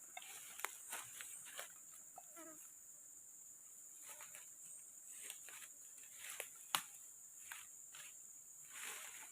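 Forest insects keep up a steady high-pitched chorus, with scattered faint clicks and rustles, the sharpest about seven seconds in.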